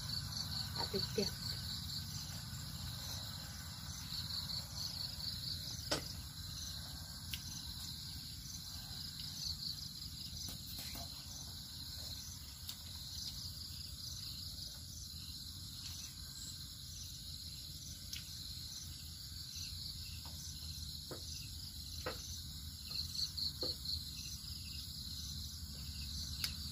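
Crickets chirping in repeated high, pulsed trills that swell several times, over a steady low rumble, with a few sharp light clicks from utensils and food on the dish.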